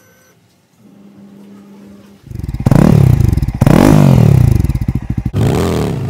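Motorcycle engine revved hard several times, its pitch sweeping up and falling back with each blip. Before it, about two seconds in, a fainter steady low hum.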